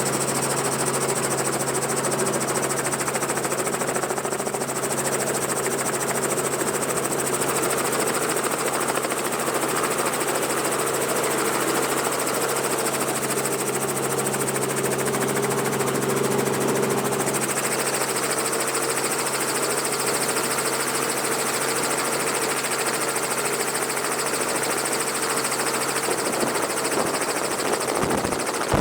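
Robinson R44 helicopter running steadily: the six-cylinder piston engine and the rotors make a constant drone with several held tones, heard from aboard with the doors off.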